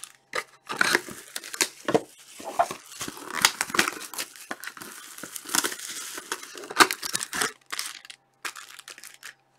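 Cellophane wrapping on trading card boxes crinkling and tearing in a run of short, irregular rustles as the boxes are handled. It falls quiet shortly before the end.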